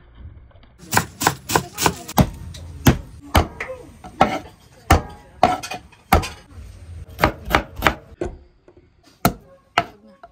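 Kitchen knife striking a wooden cutting board again and again, cutting up peeled garlic cloves: a string of sharp, irregular chops, about two a second, starting about a second in.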